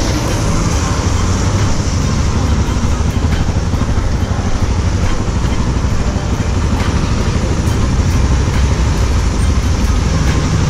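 Steady road traffic noise on a wet avenue, with a constant low rumble and tyre hiss.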